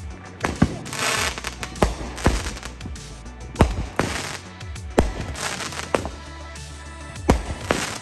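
Consumer fireworks going off: a string of sharp bangs, one or two a second, with hissing, crackling bursts in between as shells launch and break.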